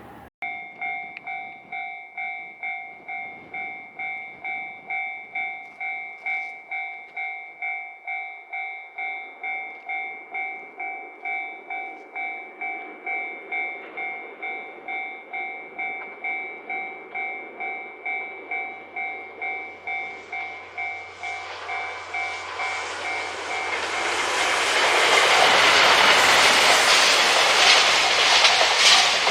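Japanese level-crossing warning bell dinging steadily, about twice a second. From about 20 s in, a diesel train's engine hum and wheel-on-rail noise build up and grow loud as it runs past, drowning out the bell near the end.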